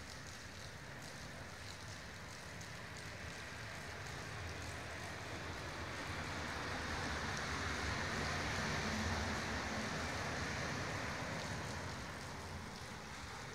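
Rain falling steadily, with a broad rushing swell and low rumble that builds over several seconds, peaks about two-thirds of the way in, then fades.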